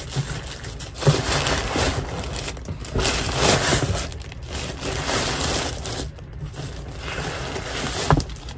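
Packaging crinkling and rustling in irregular bursts as it is handled and unwrapped.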